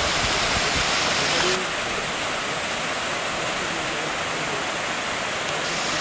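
Waterfall cascading over rocks into a pool, a steady rushing roar of falling water. About one and a half seconds in it turns slightly quieter and duller, then brightens again near the end.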